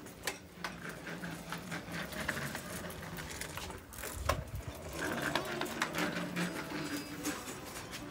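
A bicycle being ridden, with a rapid mechanical clicking and rattling and scattered sharp knocks.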